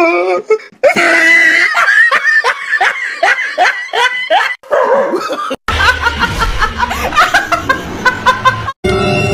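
A person laughing hard in quick, repeated bursts; music starts near the end.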